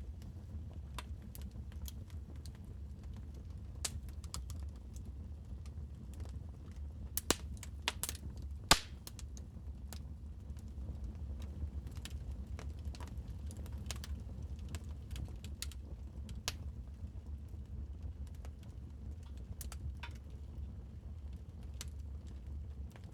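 Wood fire crackling in a fireplace: irregular sharp snaps and pops, with a few louder pops about seven to nine seconds in, over a steady low rumble.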